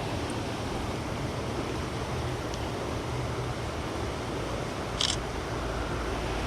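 Steady rush of running creek water. A brief sharp click sounds about five seconds in.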